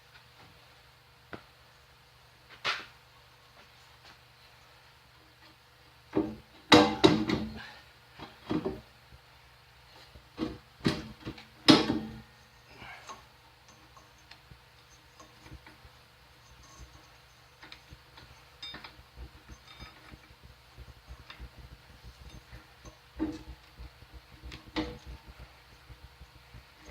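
Knocks and clinks of metal machine parts being handled while a pulley is fitted onto a molder-planer shaft: one knock about three seconds in, a cluster of sharp knocks with brief ringing from about six to twelve seconds in, then faint ticking and two more knocks near the end.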